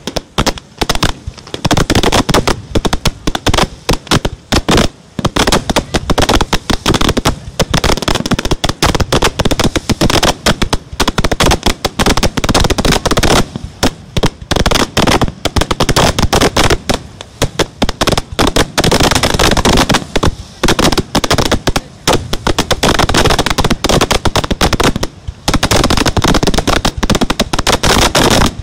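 Fireworks display: a dense, rapid barrage of aerial shell bursts and crackling, the bangs following one another almost without pause, with a couple of brief lulls.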